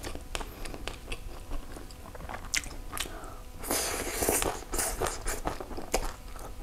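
Close-up crunchy chewing and biting of a shredded green mango and salted cà xỉu salad: many short crisp crunches, with a denser slurping rush about four seconds in as strands are drawn into the mouth.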